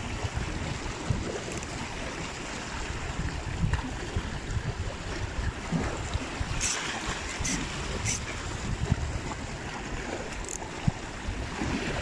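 Heavy sea surf washing against the rocks, with wind buffeting the microphone in low gusts. A few short, sharp clicks come in the middle.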